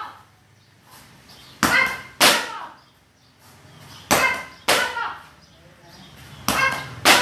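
Taekwondo kick paddles slapped by kicks in quick pairs, three pairs a couple of seconds apart, with short shouts along with the strikes.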